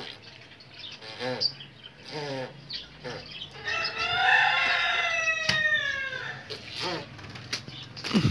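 Chickens calling: a few short clucks, and one long, gently falling crow of about two and a half seconds from a rooster around the middle.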